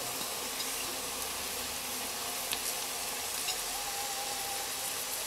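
Onions frying in a steel pot with a steady, quiet sizzle, and a few faint taps as sliced mushrooms are pushed in on top.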